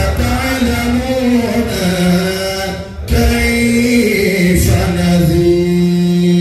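A man chanting into a microphone in long held, drawn-out notes, with a brief breath break about three seconds in.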